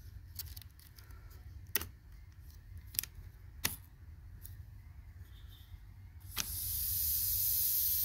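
A few sharp metallic clicks from handling the pneumatic brake mechanism, then about six seconds in a click and a steady hiss of compressed air in the brake's air line, from a small tank at about 20 psi.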